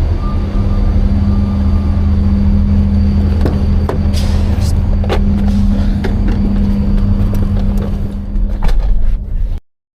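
A vehicle engine running steadily with a low hum, a few sharp clicks over it; the sound cuts off abruptly near the end.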